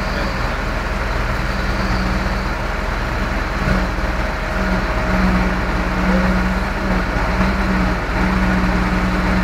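Heavy diesel engine of a truck-mounted crane running steadily as it holds the lift, with a low rumble and a steady hum that drops out briefly a few times.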